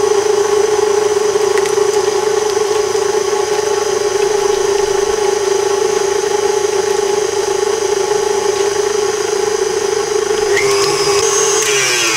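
KitchenAid Artisan stand mixer running at a steady pitch, its wire whisk beating cream-cheese filling with a freshly added egg. Near the end the motor winds down, its pitch sliding downward.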